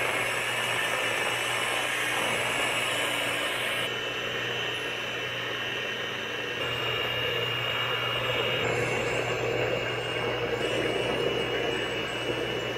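A small electric appliance motor running continuously, a steady whirring with a faint high whine, its sound shifting slightly every few seconds.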